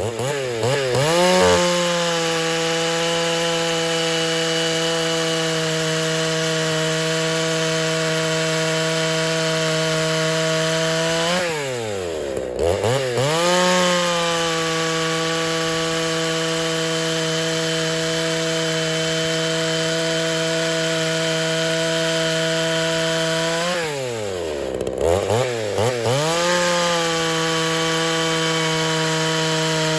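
Two-stroke chainsaw with a hand-ground chain cutting through wood at full throttle, its engine pitch held steady under load. Twice the throttle drops off between cuts: the pitch falls away, then revs back up as the next cut starts.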